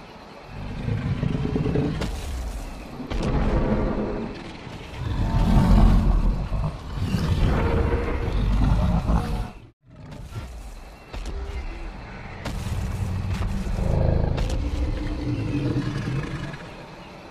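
Film soundtrack of deep, rumbling, roar-like swells, each a second or two long, with music underneath, set to animated marine reptiles. It drops out abruptly for an instant about ten seconds in.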